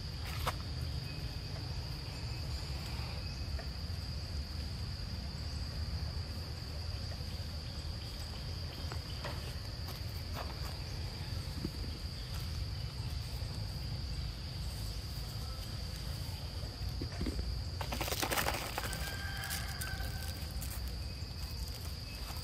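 An insect's steady, unbroken high-pitched drone over a low outdoor rumble, with a few faint clicks and a short burst of rustling about eighteen seconds in.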